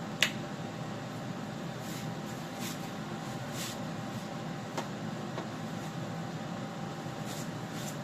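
Steady room hum with a sharp click just after the start and a softer click about five seconds in, along with a few faint soft rustles.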